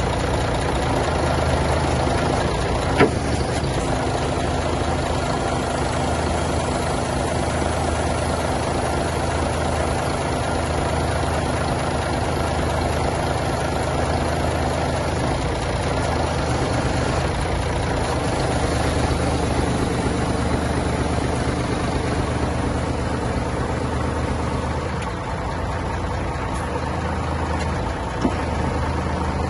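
Scania P94-260 truck's diesel engine running steadily at idle while its Palfinger PK13000 loader crane is worked. There is a sharp click about three seconds in and another near the end.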